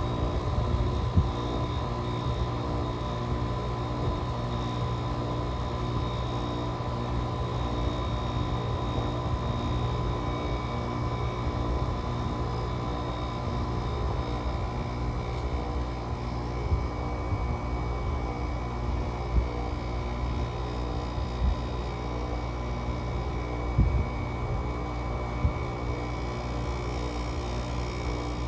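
GE 5050 BTU window air conditioner with a Samsung rotary compressor running through a cold start in sub-freezing air, a steady even drone with a constant hum and a thin whine, while head pressure builds. A few short knocks come through at intervals.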